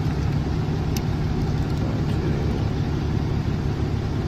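A vehicle engine idling steadily, a low rumble, with one light click about a second in.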